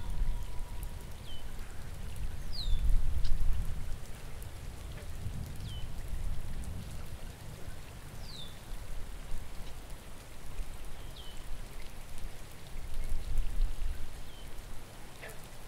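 Steady rain over a deep rumble that swells about three seconds in and again near the end, with a bird giving short downward-sliding chirps every couple of seconds.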